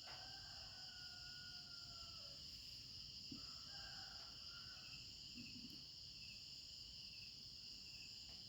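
Crickets chirping steadily in a night-time chorus, a continuous high-pitched trill. A fainter, lower-pitched call drifts in at the start and again about three seconds in.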